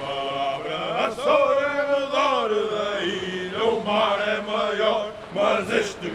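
A voice chanting in long notes that waver and bend in pitch.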